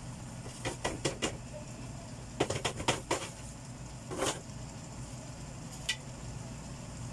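Adobo sauce simmering in a frying pan with chicken gizzards: scattered small pops and clicks, a quick run of several around the middle, over a steady low hum.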